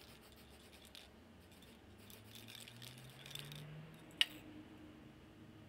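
Aerosol spray paint can hissing faintly as paint is sprayed over a ground-smooth welded steel flat bar, then a single sharp click about four seconds in.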